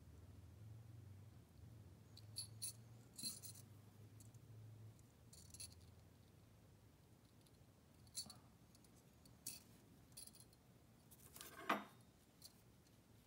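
Small metal fishing tackle being handled: light, scattered clicks and taps of a wire, a bullet weight and a hook, with a sharper, longer metallic clink near the end, over a faint low hum.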